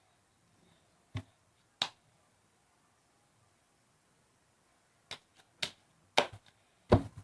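Sharp, wet clicks and pops of slime being squeezed and pulled apart in the hands: two single pops, a pause of about three seconds, then a quicker run of clicks near the end.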